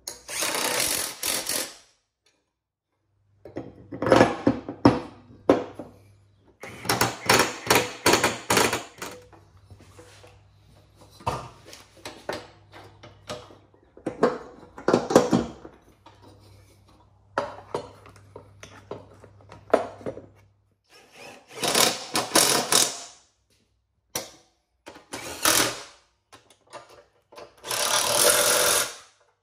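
Cordless drill/driver running in repeated short bursts of one to two seconds, driving in and tightening bolts as the mower deck's spindles, pulleys and belt shields are bolted back on. Between the bursts come clinks and knocks of metal parts being handled.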